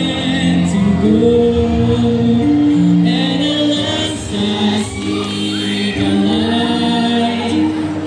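A song sung live into handheld microphones over accompanying music, amplified through a PA system, as a duet with a second voice joining partway through.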